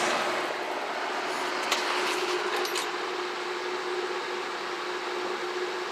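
Late-1950s Country Aire C-22 12-inch box fan with a Redmond motor running steadily on high: an even rush of air with a little bit of a hum. A few faint ticks come about two seconds in.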